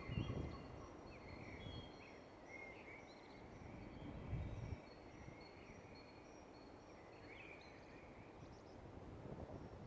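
Dawn chorus of several songbirds, with many short chirps and whistles overlapping throughout. Under it is a low rumble that swells just after the start and again about four seconds in.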